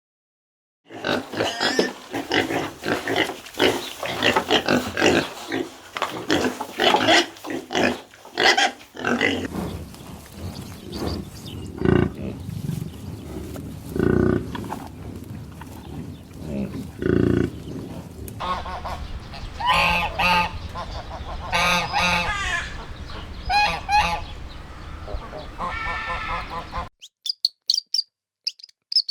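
Farm animals calling loudly: many overlapping honking cries for the first several seconds, then lower, sparser calls, then more cries. The sound cuts off abruptly a couple of seconds before the end.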